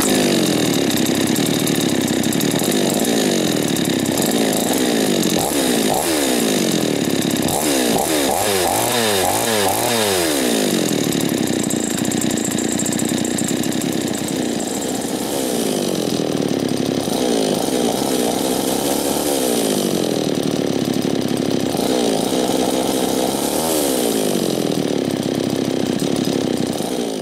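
Two-stroke chainsaw engine running and being revved up and down every couple of seconds, with a quick run of short throttle blips about eight seconds in. The sound cuts off suddenly at the very end.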